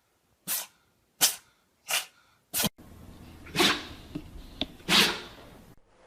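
A pet sneezing: four quick sneezes, then after a cut two more, spaced further apart.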